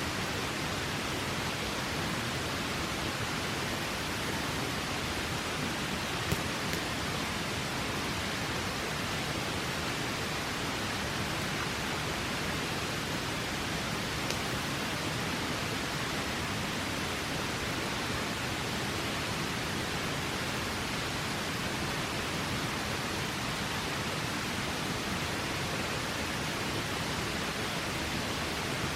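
Steady rushing of a river, with two faint pops from a campfire about six and fourteen seconds in.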